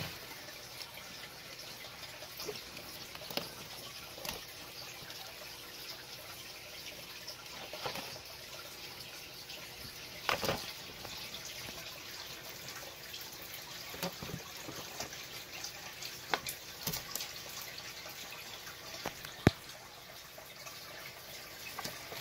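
Steady low hiss with scattered light clicks and knocks as a giant African bullfrog and dubia roaches move about in a plastic tub; one sharp click stands out near the end.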